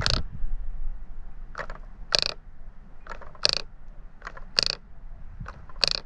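Short, sharp bursts from work on a Bosch idle air control valve being cleaned, mostly in pairs with a weaker burst then a stronger one, about one pair a second.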